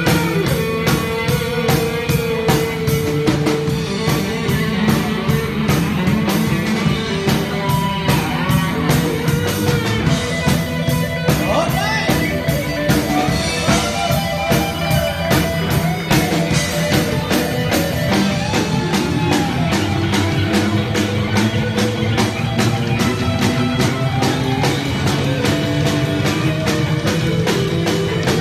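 Live rock band playing loud: electric guitar lines over a steady drum-kit beat.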